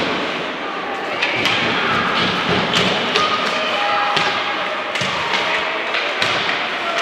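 Ice hockey game in play: repeated sharp clacks and thuds of sticks, puck and players against the boards, over rink noise with voices calling out.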